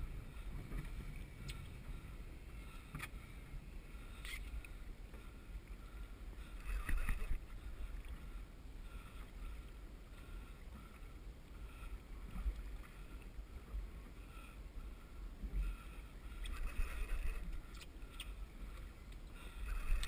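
Wind rumbling on the microphone and water lapping at the hull of a small drifting boat, with a few faint knocks and two louder swells partway through.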